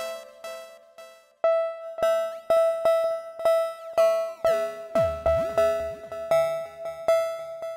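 Serum software synthesizer playing a repeating plucked arpeggio, about two notes a second over a steady high note, with a short break about a second and a half in. Near the middle the sound warps, its pitch sweeping down and back up, while the distortion drive is being turned up.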